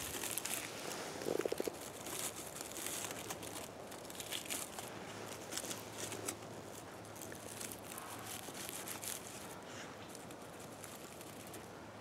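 Dry pine needles and leaf litter rustling and crackling under a hand working close to the ground, in scattered small crackles, busiest about a second and a half in.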